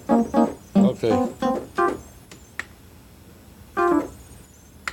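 Yamaha DX7 II-D synthesizer playing a quick series of short notes, then a single further note about four seconds in.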